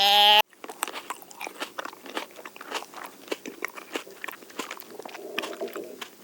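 The end of a sheep's bleat cuts off abruptly, then an animal chews and crunches food with a rapid, irregular run of crisp bites.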